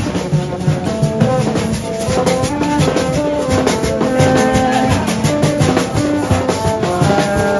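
Music with fast, dense drumming under a melody of held notes.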